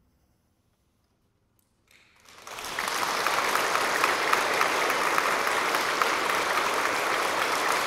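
Near silence, then audience applause starts about two seconds in and carries on steadily.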